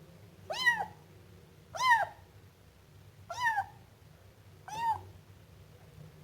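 Siamese kitten meowing four times, short calls about a second and a half apart, each rising and then falling in pitch.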